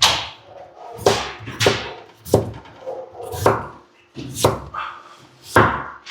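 Kitchen knife chopping a potato on a cutting board: seven sharp, uneven chops, roughly one a second.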